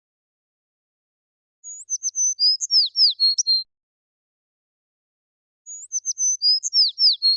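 Sparrow song: the same phrase twice, each a quick run of high chirps and sharp down-slurred notes lasting about two seconds, with a couple of seconds of silence between.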